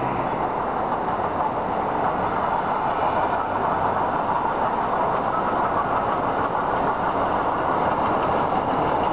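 Ja class steam locomotive 1275 approaching with its train: a steady rushing noise that grows slightly louder.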